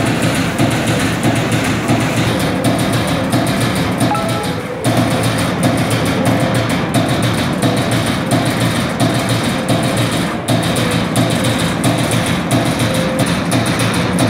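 Servo CNC turret punch press punching holes in a steel sheet: a fast, even run of sharp hits several times a second, briefly pausing twice, mixed with music.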